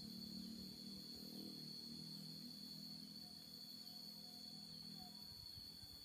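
Faint, steady high-pitched insect drone typical of crickets, with a low rumble underneath that fades out about five seconds in.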